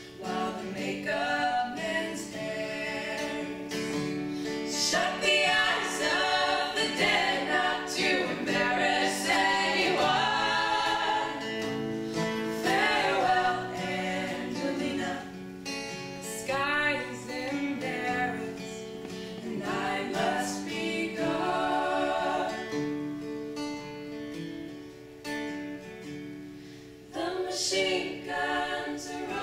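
A group of female voices singing a slow folk song in harmony, over strummed acoustic guitar.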